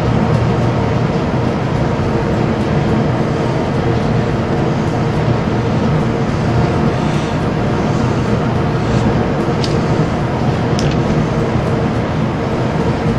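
Loud, steady mechanical drone: a continuous rushing noise with a low hum under it, from machinery running in the shop. A couple of faint ticks come about two-thirds of the way through.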